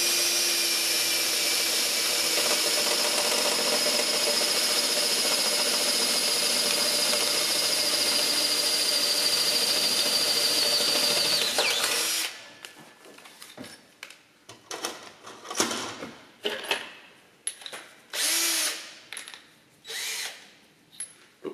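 Cordless drill boring through a steel exhaust downpipe, opening out a pilot hole to a larger size: a loud steady whine for about twelve seconds that dips slightly in pitch just before it stops. Then scattered clicks and a few brief whirs of the drill as the bit is changed.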